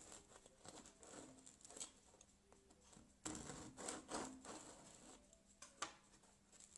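Knife sawing through a whole-wheat baguette on a wooden cutting board: faint rasping strokes, loudest about three seconds in, then a sharp knock near the end as the knife is laid down on the board.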